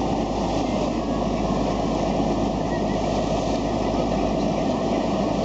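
Steady drone of a boat's engine running under way, with the constant rush of the boat moving through the water.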